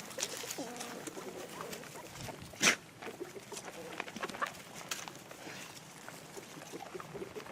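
Farmyard poultry calling softly in short chirps and clucks, with one short, sharp sound about two and a half seconds in.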